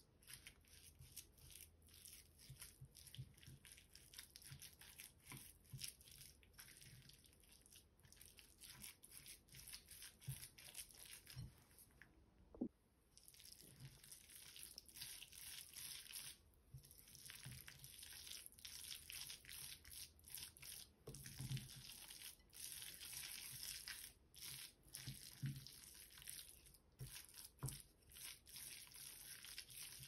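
Wooden spoon stirring and mashing a thick, oily nut paste in a ceramic bowl: faint, closely repeated scraping strokes, pausing briefly about twelve seconds in.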